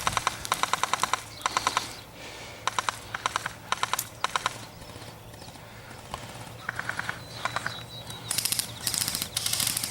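Airsoft rifles firing in repeated full-auto bursts: fast, even clattering runs of shots, each lasting about half a second to a second, several in a row with short gaps.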